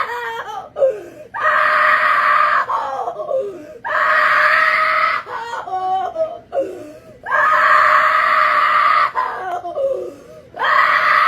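A person screaming four times, each scream lasting about a second and a half, with short wavering vocal sounds in between.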